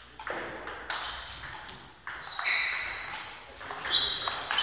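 Table tennis rally: the ball clicking off the rubber bats and bouncing on the table in a string of about eight sharp hits at an irregular, quick pace, several of them with a short ringing ping.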